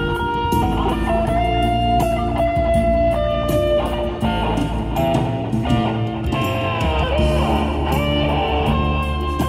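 Electric guitar playing a lead line through a Cube amplifier, with held notes and string bends, over a backing track with a steady bass.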